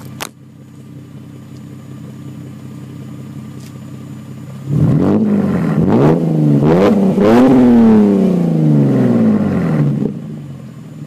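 Exhaust of a Holden Commodore VE SV6's V6 engine idling, then revved in several quick blips from about five seconds in. The last rev is the highest and falls slowly back to idle about ten seconds in.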